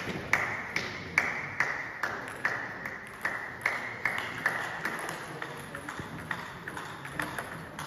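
Table tennis ball bouncing on a hard surface over and over at a steady pace, about two or three bounces a second, each with a short ringing ping; the bounces thin out after about five seconds.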